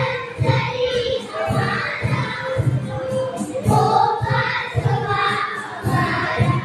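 A choir of young children singing a patriotic song in unison over accompanying music with a steady low beat.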